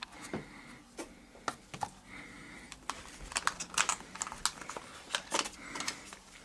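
Irregular light clicks, taps and rustles of product packaging being handled: a rigid box, its tissue paper, and a cardboard shipping box.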